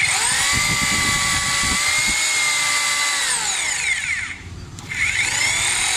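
Bosch GBH 2-26 DRE SDS-plus rotary hammer running free in its plain rotary drilling mode, with no hammer action and no load. Its motor spins up and runs steadily with a high whine, winds down about three seconds in, and spins up again about a second later.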